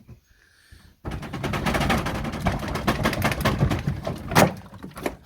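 Wooden shed roof being wrenched off, its timbers cracking and splintering in a rapid run of cracks for about four seconds, with one loudest crack near the end.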